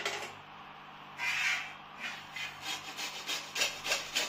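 Fresh cucumber being grated on a flat hand-held steel grater: rasping strokes, one longer stroke a little after a second in, then quicker strokes about three a second.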